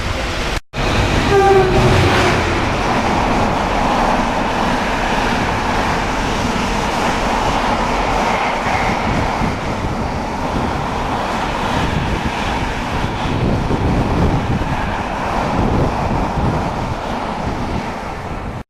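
A freight train running through a station, a steady loud rumble of passing wagons. A brief high tone sounds about a second and a half in.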